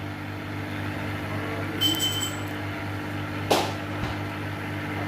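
Steady electrical machine hum, with a short high beep about two seconds in and a sharp click about a second and a half later.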